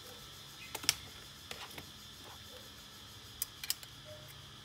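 Light, sharp clicks and ticks of a gold-coloured metal vintage Ray-Ban eyeglass frame being handled, in small clusters about a second in and again near three and a half seconds.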